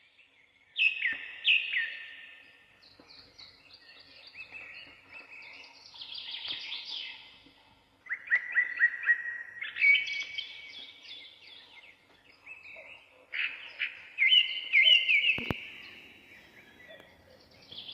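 Songbirds singing outdoors in short repeated phrases of quick, high, descending notes, with pauses between phrases. There is one brief knock about fifteen seconds in.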